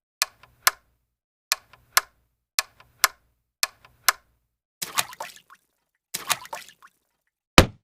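Clock-like ticking effect: sharp clicks in tick-tock pairs, about one pair a second, then two longer rattling clusters and a single hard hit near the end.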